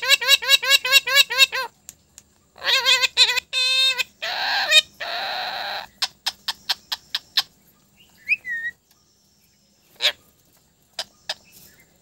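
Indian ringneck parrot vocalizing: a fast run of repeated pitched calls, about eight a second, a few more calls, then harsh raspy noises, followed by a rapid string of clicks and a few scattered clicks.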